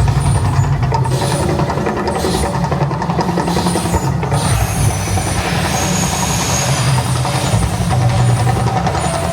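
Loud, steady deep rumble of the Mirage volcano eruption show, with a fainter hiss above it.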